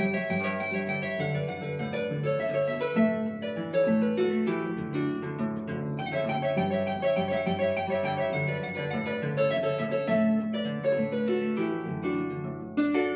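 Solo arpa llanera, the Venezuelan folk harp, plucked by hand. It plays a quick, busy melody in the treble over a plucked bass line, with a brief pause in the treble about six seconds in.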